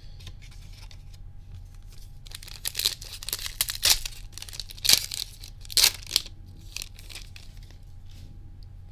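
Foil wrapper of a Japanese Pokémon Scarlet ex booster pack being torn open and crinkled: a run of sharp crackling rips beginning about two seconds in, loudest toward the middle, then fainter rustling.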